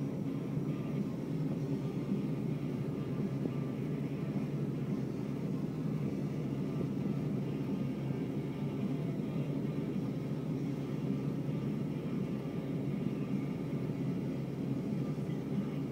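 Tractor engine running steadily, heard from inside the cab as an even, low drone.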